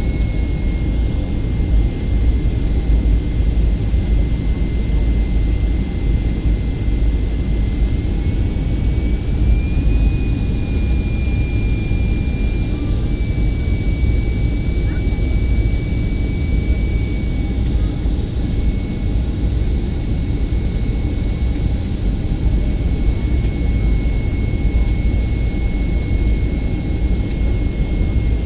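Inside the cabin of a Boeing 737-400, its CFM56 jet engines running in flight with a steady low rumble and a thin engine whine. The whine's pitch rises slightly about eight seconds in and eases back a few seconds later as the thrust is changed.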